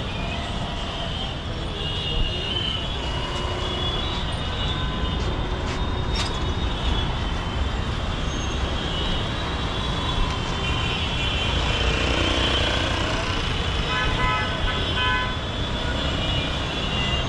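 Busy street traffic: motor scooters and cars running past with a steady rumble, and horns honking now and then, most plainly near the end.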